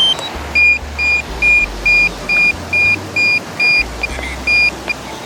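DJI drone remote controller (the Air 2S / Mini 2 model) beeping repeatedly, one high tone about twice a second, just after a short rising chime at the start. The nonstop beeping is an unwanted alarm that keeps coming back.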